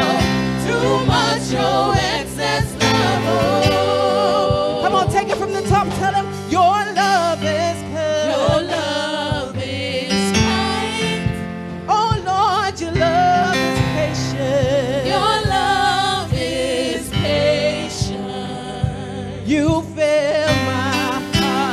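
Women's voices singing a gospel praise song over instrumental backing with drums. The sung lines waver with vibrato over steady low chords.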